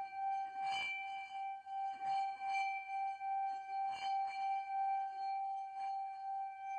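A bowl ringing with one sustained tone and its overtones. The loudness wavers about twice a second, and a few soft taps sound over it.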